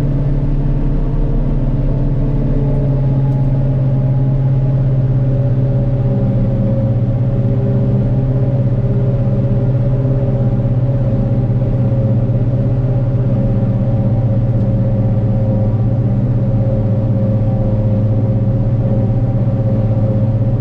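Heavy diesel engine of a farm machine running at a steady speed: a constant low drone with steady pitched tones over it.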